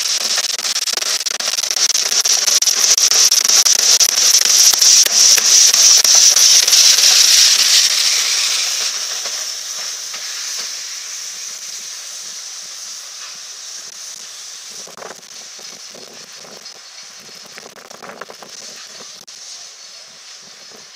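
Steam hissing from the open cylinder drain cocks of LMS Princess Coronation Class Pacific 46233 Duchess of Sutherland as the locomotive moves. The hiss is loud, swells to a peak about halfway through, then dies away to a much quieter hiss.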